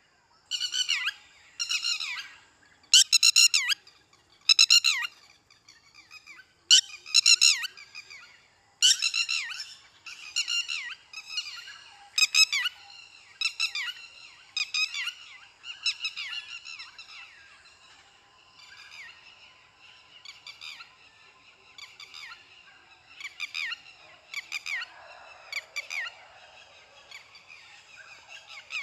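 A long series of short, high-pitched animal calls, each falling in pitch, coming roughly once a second and loudest over the first half.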